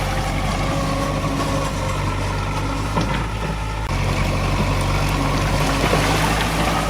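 Diesel engine of a Komatsu D20A crawler bulldozer running steadily. It eases off a little about two seconds in and picks back up near the four-second mark, with a few light knocks.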